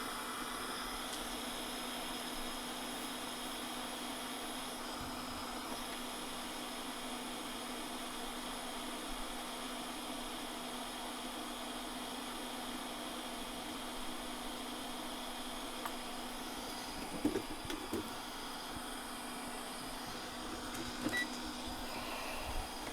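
Steady whir of an electric fan on a microsoldering bench, with a constant low hum; a few faint taps near the end.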